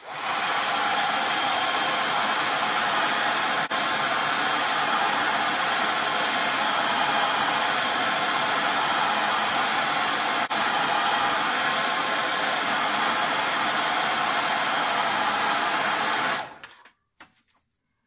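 Hairdryer on its hot setting blowing steadily, warming border tape to soften its adhesive so the tape can be peeled off without tearing the paper. There are two momentary dips in the sound, and it switches off about a second and a half before the end, followed by a few faint clicks.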